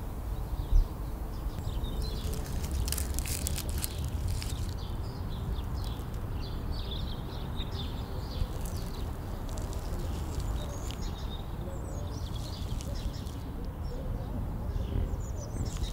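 Outdoor ambience: small birds chirping on and off over a steady low rumble, with a single sharp knock about a second in.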